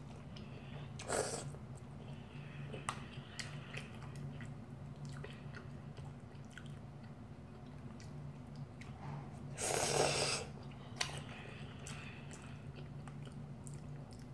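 A boy chewing ramyeon noodles, with soft mouth clicks, and slurping them in: briefly about a second in and loudly for nearly a second about ten seconds in.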